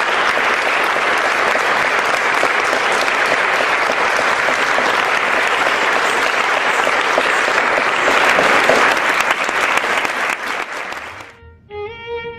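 Sustained applause from many hands clapping, steady and loud, which cuts off about eleven seconds in as a melodic Carnatic-style music line begins.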